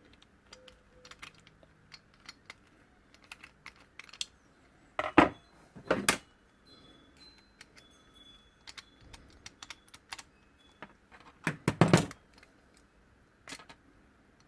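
Scattered small metallic clicks and taps, with louder knocks about five, six and twelve seconds in: tools and steering-lock parts being handled, with no drill running.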